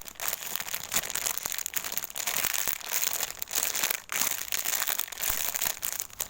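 Crinkling and rustling close to the microphone as a squishy toy is handled and turned over, an irregular crackle.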